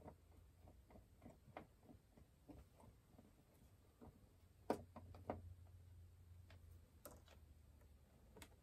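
Faint, scattered clicks and ticks of a small Phillips screwdriver and fingers working the tiny screws out of a treadmill console's display board, with a sharper click about five seconds in.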